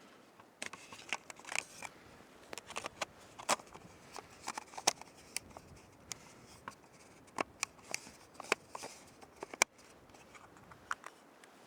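Camera gear being handled close to the microphone: irregular sharp clicks and short rustles, a few each second, as the camera body and zoom lens are taken out and readied. The loudest click comes near the end.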